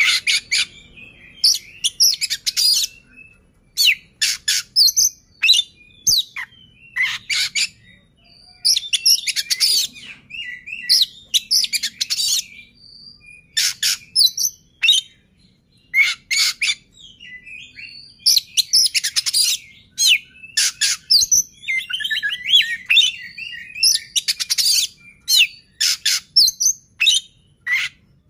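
Oriental magpie-robin (kacer) singing loudly: phrases of rapid, high, sharp chattering notes and whistles, each a second or two long, with short pauses between them.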